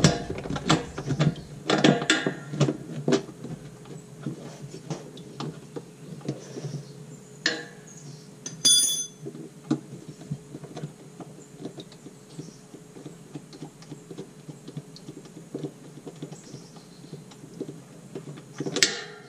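Small metal clicks and taps from a Torx key being worked by hand on a transmission-pan bolt. They come thick in the first few seconds and sparser after, with one short metallic ring about nine seconds in and a louder clack near the end.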